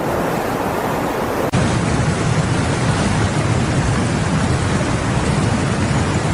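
Steady rushing noise of a heavy rainstorm. About a second and a half in it cuts abruptly to a louder, deeper rush.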